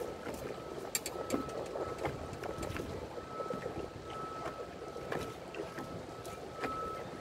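Steady outdoor wind and water noise, with scattered light clicks and a faint high tone that comes and goes.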